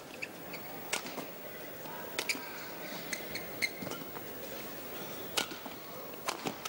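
Badminton rally: a few sharp racket strikes on the shuttlecock, about a second or more apart, with brief shoe squeaks on the court over the steady murmur of an arena crowd.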